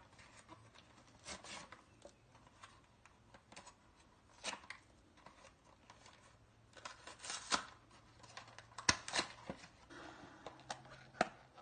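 Memory card retail packaging of cardboard and plastic being pried and torn open by hand: scattered crinkles, tears and sharp clicks, loudest a little past the middle, then the small clear plastic card case being handled.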